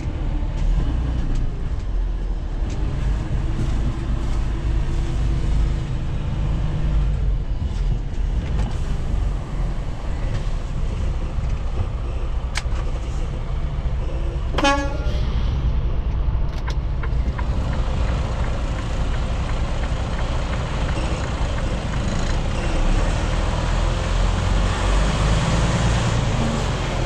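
Semi-truck's diesel engine running steadily, heard from inside the cab while the tractor maneuvers a bare chassis. There is one short pitched sound, horn-like, about halfway through.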